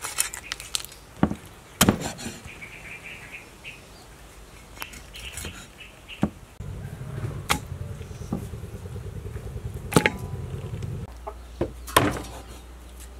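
Cleaver chopping raw chicken on a wooden chopping block: single sharp chops, irregularly spaced a second or several apart. A low steady hum joins about halfway through and stops about two seconds before the end.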